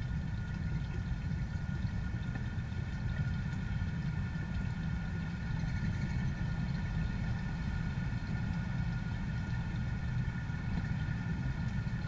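Steady low machine hum with a few faint, constant higher tones, unchanging throughout.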